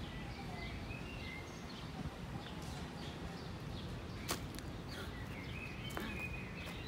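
Quiet outdoor ambience: a low steady rumble with small birds chirping on and off, and a sharp click about four seconds in and another near six.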